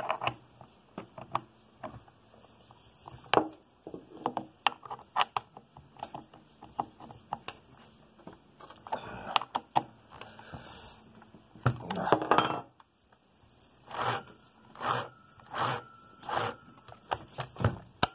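Metal clinks and scrapes of a combination spanner's socket working a STIHL MS 194 T chainsaw's bar nut as the nut is turned and tightened, with a denser scraping stretch about two thirds through and a run of sharper clicks near the end.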